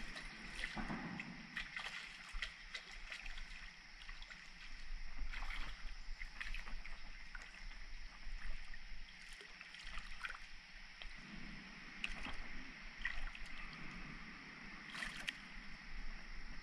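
Small splashes and water sloshing as a hooked channel catfish is handled at the river's surface, with scattered light ticks and taps throughout.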